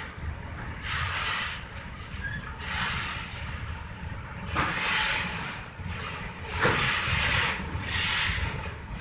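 Autorack freight cars rolling slowly past, steel wheels hissing and rubbing on the rails in waves over a low rumble. A couple of short clanks come about halfway through.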